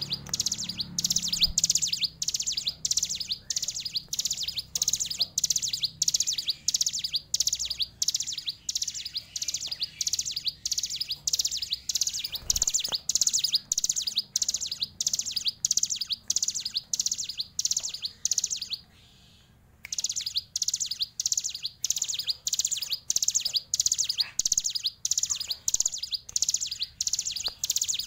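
Ciblek gunung, a prinia, calling in a long, fast run of sharp, high repeated notes, about two to three a second. The run breaks off for about a second just past the middle.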